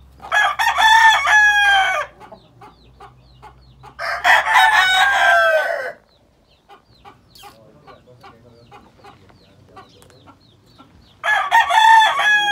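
Roosters crowing: three long crows of about two seconds each, the last starting near the end, with soft clucking between them.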